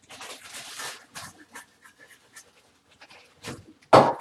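Puffs of air blown at dusty computer parts: a hiss for about the first second, a few short puffs, and a louder sharp puff near the end.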